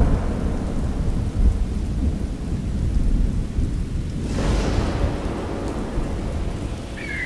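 Thunderstorm: steady rain over deep rolling thunder, with a louder surge about four and a half seconds in. A high tone starts just at the end.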